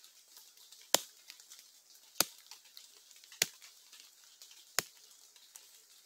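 A thin stick knocked in the slow 'batuque' rhythm, a hunter's lure to draw an agouti closer: four sharp wooden knocks about one and a quarter seconds apart, each a little softer than the last.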